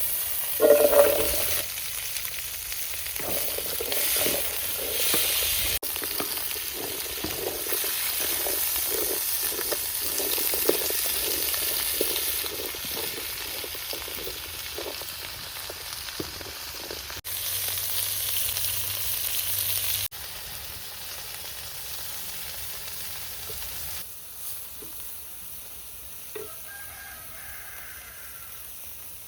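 Food sizzling as it fries in hot oil in a pan, with a utensil stirring it in quick repeated strokes for much of the time. The sound changes abruptly several times, growing quieter in the last few seconds.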